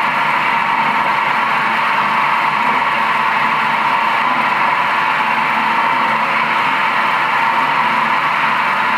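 Nagema bowl cutter running steadily, its spinning knives chopping meat into sausage batter as the bowl turns.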